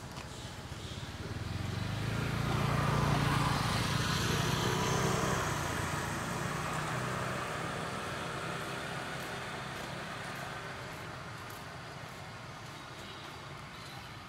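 A motor vehicle driving past on the road, its engine hum and tyre noise growing louder over the first few seconds and then slowly fading away.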